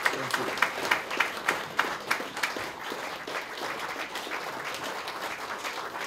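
Audience applauding. A few loud single claps stand out in the first couple of seconds, then the clapping goes on steadily.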